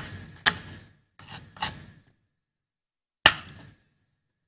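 Kitchen knife slicing through an onion onto a wooden cutting board: several sharp cuts in the first two seconds, a pause, then one more cut about three seconds in.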